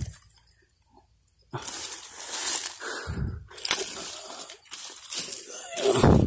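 Dry grass, twigs and leaf litter rustling and crunching underfoot as someone walks across the forest floor, with dull thumps about three seconds in and again near the end. The first second or so is almost silent.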